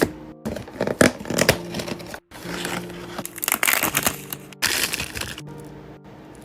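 Plastic blind-bag packaging being torn and crinkled by hand: a busy run of sharp crackles and rustles over background music. The sound breaks off abruptly a few times.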